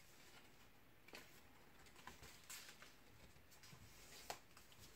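Near silence with faint handling of card stock being folded by hand: soft rustles and a few light ticks of paper.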